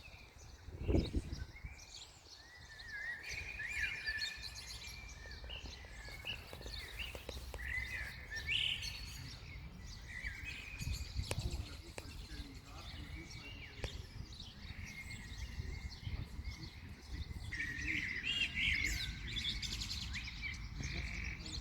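Small birds chirping and twittering in quick, overlapping calls, over wind rumbling on the microphone, with a stronger gust about a second in.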